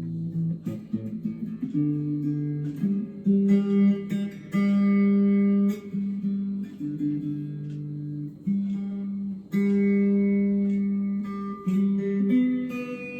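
Gear4Music LA Select Strat-style electric guitar being played, notes and chords picked one after another and held for about a second each.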